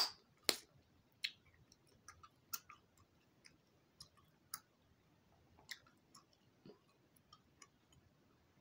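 Loud gum chewing: irregular sharp wet smacks and clicks of the mouth, about one or two a second, the loudest two in the first half second.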